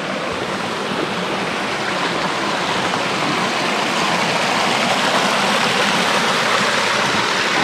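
Small rocky creek rippling and splashing over little cascades, a steady rush of water that grows a little louder over the first few seconds.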